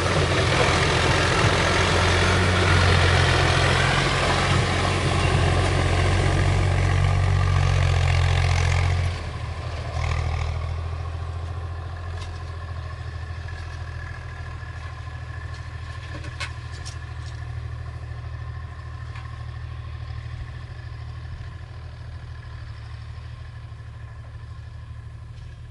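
Diesel engine of a backhoe loader running hard under load, then dropping sharply to a quieter, lower idle about nine seconds in. A couple of brief clicks come later.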